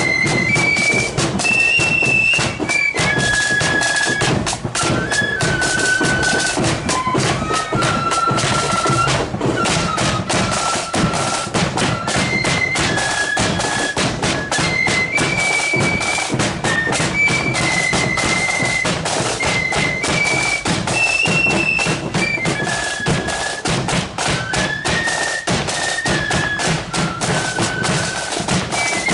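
Marching flute band playing a tune, massed high flutes carrying a shrill melody over steady snare and bass drumming.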